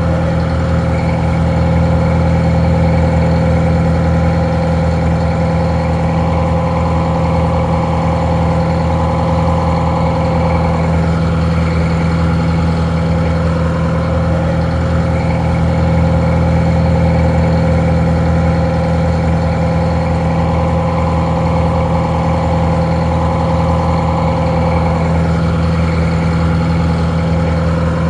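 Detroit Diesel 4-71 two-stroke diesel engine idling steadily, a little muffled.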